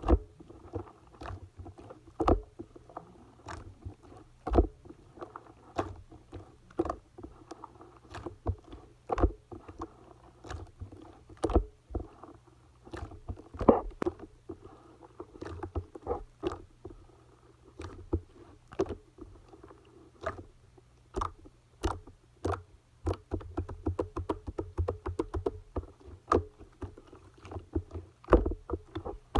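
Clay-mixed slime being squished and pressed by hand, making irregular sharp clicks and pops with a soft squelching underneath. The pops come faster near the end.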